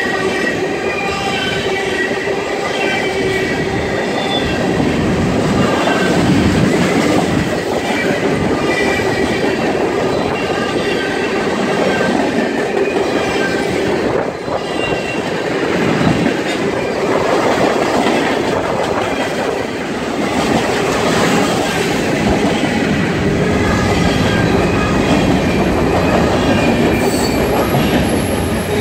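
Freight cars of a mixed manifest train rolling past at speed: a steady rumble and clatter of steel wheels on the rails. High-pitched wheel squeal rings through about the first half and returns faintly near the end.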